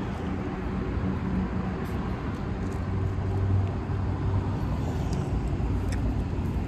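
Steady road traffic noise: cars running past on a street, a continuous rumbling hiss without any single standout event.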